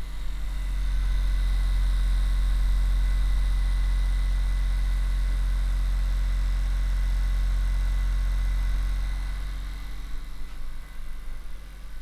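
Handheld percussion massage instrument pressed against the lower back, its motor running with a steady low hum. It starts about a second in and winds down about nine seconds in.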